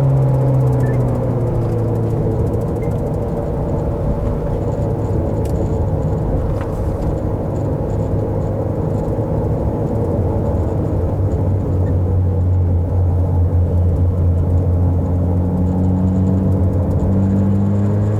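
Car engine heard from inside the cabin while driving a mountain road, with road noise underneath. The engine note drops at the start, holds low and steady through the middle, and climbs again near the end as the car accelerates.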